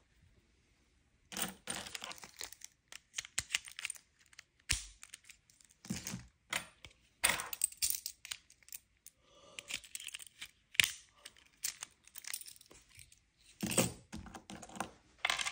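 A Toyota 2019 Camry smart key fob and a ring of metal keys being handled and set down on a wooden table: irregular plastic clicks, small metal rattles and light clatters, starting about a second in.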